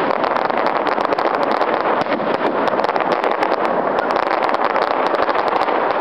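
Fireworks bursting in a finale: a dense, continuous stream of sharp crackles and pops, many a second, over a steady wash of noise.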